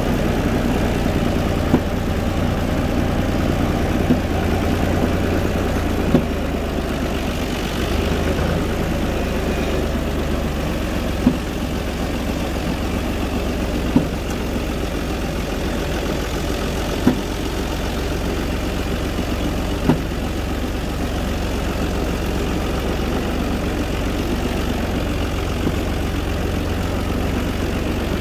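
UTB 445 tractor's diesel engine running at a steady low speed. A sharp click or knock cuts through every few seconds at uneven intervals.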